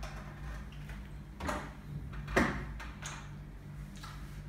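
Two brief rustling, knocking handling sounds, about a second and a half in and again just after two seconds, the second louder, over a steady low hum.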